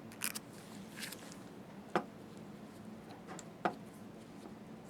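Two light clicks and some faint rustling as small parts are handled, over quiet room hiss.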